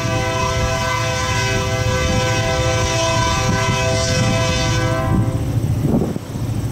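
Three-chime Nathan K3LA air horn on a lead EMD GP38-2 locomotive, one long steady blast for a grade crossing that cuts off about five seconds in. A low rumble runs underneath.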